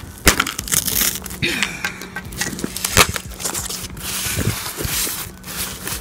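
Clear packing tape being peeled and torn off a cardboard box, crackling and ripping in short stretches, with sharp clicks and taps of fingers and cardboard flaps.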